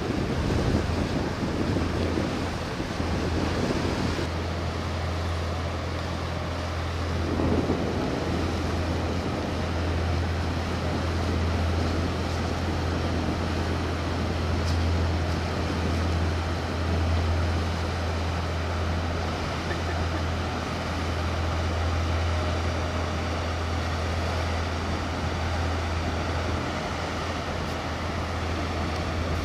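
Steady low drone of a passing cargo vessel's engine, under wind buffeting the microphone and the wash of water. The wind gusts come strongest in the first several seconds.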